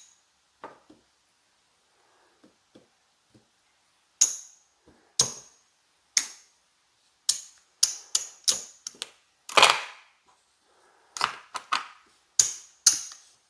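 Casino chips clacking together as red chips are counted out and set down in small stacks: sharp, irregular clicks, sparse for the first few seconds and then coming in quick clusters.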